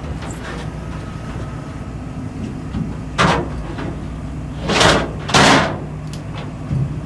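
Steady low hum of the tender's engine and crane while a crane-hung bag of salmon is lowered into a plastic fish tote and shifted by hand. Three loud rushing, scraping noises come about three, five and five and a half seconds in.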